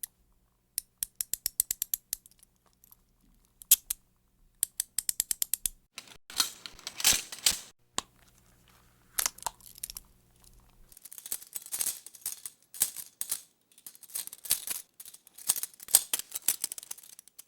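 Metal handcuffs being opened and snapped shut: quick runs of ratchet clicks as the cuffs close, with metallic clattering and rattling in between.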